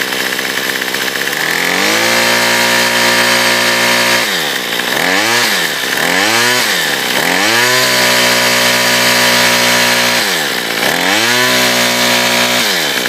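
Troy-Bilt TB32 EC two-stroke string trimmer engine revving. It climbs from a low speed to full throttle about two seconds in, is let off and opened up again three times in quick succession, holds full speed, dips once more and drops back near the end. It holds full throttle steadily without bogging, its carburetor low- and high-speed screws freshly adjusted.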